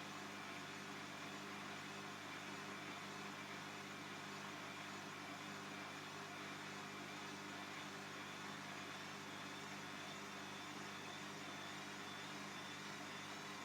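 Bosch Classixx 6 Vario Perfect washing machine running with a steady, even hum from its motor and drum.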